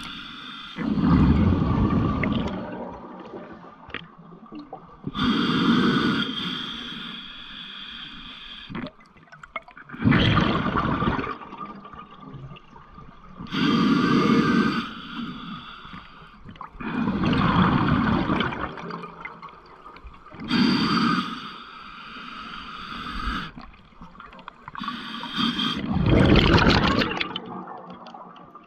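Underwater rushing and bubbling water noise close to the microphone, in loud surges of about a second or two, roughly every three to four seconds, with a quieter hiss between them.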